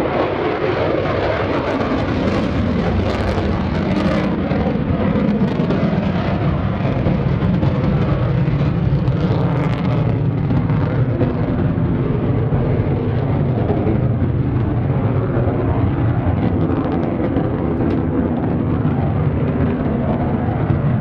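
F-35C Lightning II's single F135 turbofan engine running loud and steady as the jet flies by, with scattered crackle in the first half.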